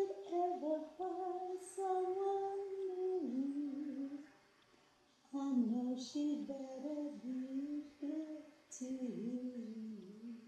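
A woman singing a slow melody without clear words, close to humming, unaccompanied. It comes in two long phrases with a short break about four seconds in.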